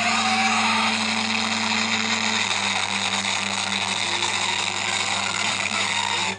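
Steady, loud hissing noise over a low electrical-sounding hum, running without change until it cuts off suddenly at the very end.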